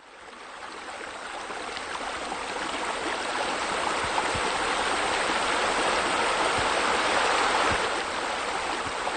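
Water from a pool's water feature pouring and splashing steadily into the pool, fading in over the first few seconds.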